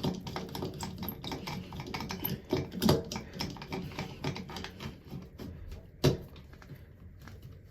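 Screws being tightened into the bathtub faucet trim with a screwdriver: a quick run of small clicks and scrapes of metal on metal, thinning out, with one sharper knock about six seconds in.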